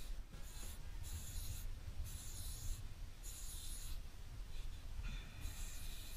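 Aerosol spray paint can hissing in five short bursts, each half a second to a second long, as thin lines are sprayed onto a wall, over a low rumble.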